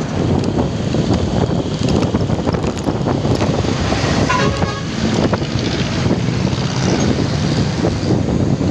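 Wind buffeting and traffic noise heard from a moving motorcycle, with a short vehicle horn toot a little past four seconds in.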